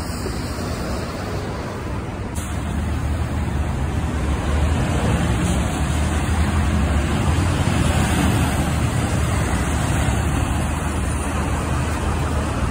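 Heavy dump truck's diesel engine running as it turns and pulls across the street, growing louder about two seconds in, over steady traffic noise.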